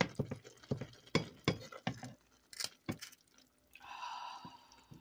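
A utensil working through wet, cooked collard greens and smoked turkey in a pot, making a quick run of clicks, knocks and wet squelches against the pot. A short breathy hiss follows about four seconds in.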